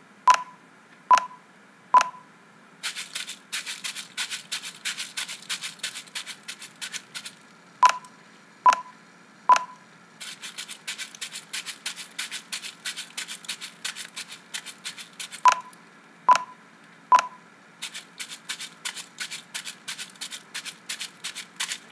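A Foley bag squeezed and crunched in quick rhythm to mimic footsteps running across grass, performed three times in a row. Each pass comes right after three short, evenly spaced cue beeps from the looping editing playback.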